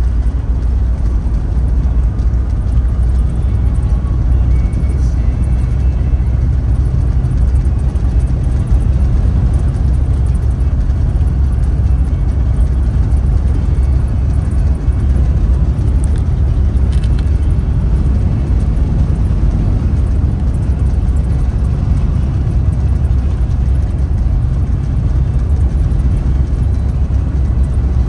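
Car driving along at a steady speed: a continuous low rumble of engine and tyre noise.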